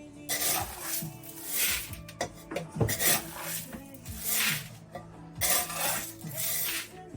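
Dry grain pigeon feed being scooped and stirred in a container: a rasping, rushing stroke about every second and a bit, six times over.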